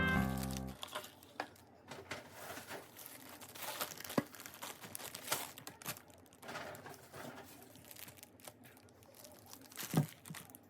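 Background music cutting out in the first second, then something being handled with light crinkling and rustling and scattered clicks. A sharp click comes about four seconds in and a dull knock near the end.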